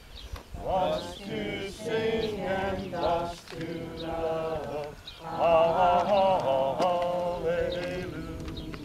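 A congregation singing a hymn together, holding some longer notes about two-thirds of the way through.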